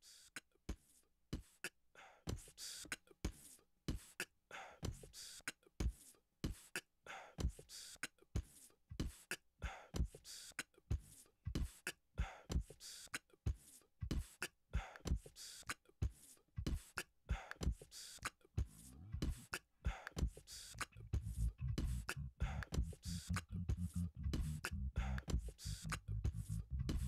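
Mouth-made beatbox drum beat, layered live on a Boss RC-505 loop station, with kick and hi-hat/snare sounds in a steady rhythm. About two-thirds of the way through, a low bass layer comes in under the beat.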